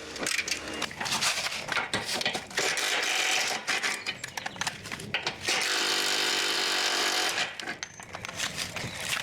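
Work on rusty subframe bolts: irregular metallic clattering and clicking of tools on the bolts, then a cordless impact wrench runs steadily for about two seconds just past the middle before the clatter resumes.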